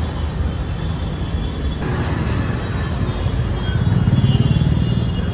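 Street traffic: motor vehicle engines running with a steady low rumble, one vehicle growing louder about four seconds in and then fading.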